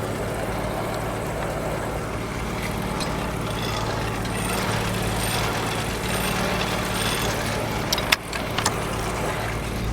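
Engine powering a Frick sawmill, running steadily, with a few sharp knocks about eight seconds in.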